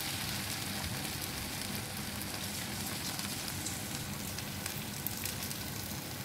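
Gochujang red pepper paste with garlic sizzling in a hot nonstick frying pan: a steady hiss with faint scattered crackles.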